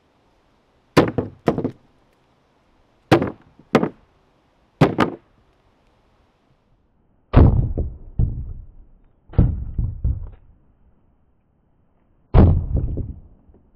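Heavy blows from a 1930s BASA No. 3 leather-faced split-head mallet smashing fruit set on bricks and a wooden tabletop: three pairs of sharp cracks in the first five seconds, then deeper thuds with rattling tails of scattering pieces.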